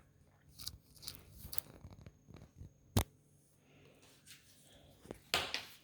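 Quiet scratching and handling sounds from coloring wooden craft pieces, with scattered light clicks, one sharp tap about three seconds in and a brief rustle near the end.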